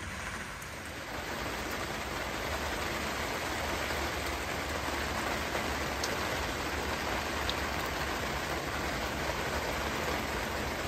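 Steady rain falling on a sailboat's tarp canopy, cockpit and the surrounding water, growing a little louder about a second in.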